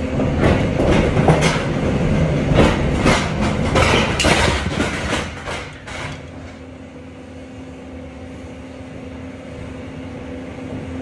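Manual pallet jack clattering and rattling over the trailer's metal floor, with a run of sharp knocks, for about the first six seconds. After that only a steady low hum remains.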